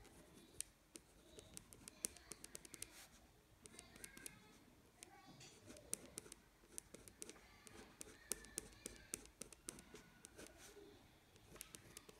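Faint ballpoint pen scratching on sketchbook paper in many quick short strokes, heard as a scatter of small ticks and scratches as hair lines are hatched in.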